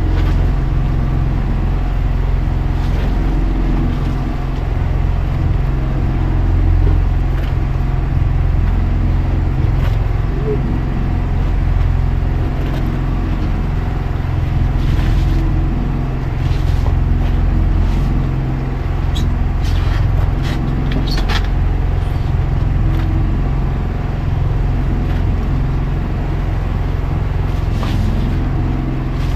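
Engine on board a motorized outrigger fishing boat running at a steady, even hum. Around the middle come a few short knocks and clatters of gear being handled on the deck.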